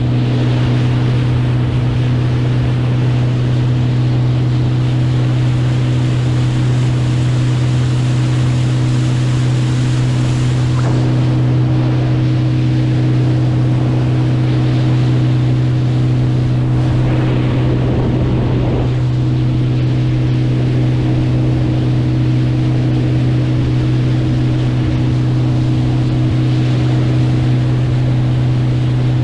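Boat motor running at a steady speed, a constant hum, over the rush of water and wind.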